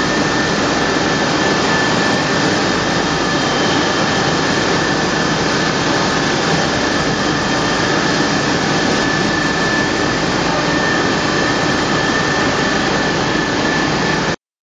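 Welding-wire coiling machine running steadily: an even mechanical noise with a high whine, cutting off suddenly near the end.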